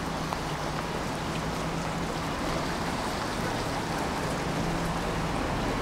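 Steady hiss of rain on a wet city street, with a low steady hum underneath and a few faint ticks.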